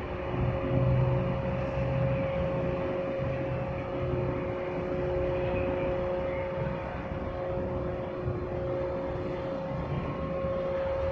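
Large container ship under way, its engines and machinery giving a steady low rumble with two steady humming tones over it.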